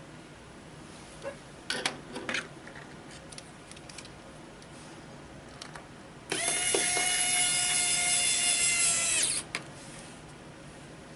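Electric screwdriver running for about three seconds with a steady whine, driving in a screw. A few sharp clicks from handling the parts come earlier.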